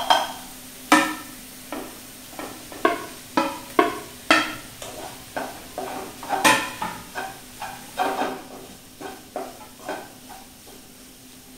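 A spatula stirring and scraping a snake gourd, egg and grated coconut stir-fry in a nonstick pan. It makes irregular clinks and scrapes against the pan, about one or two a second, with the loudest knock a little past the middle.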